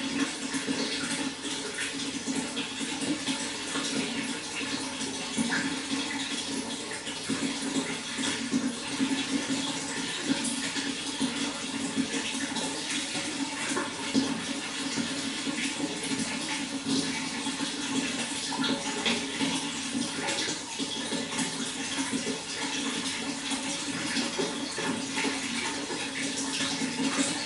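Water flowing steadily with a continuous rushing, splashing sound.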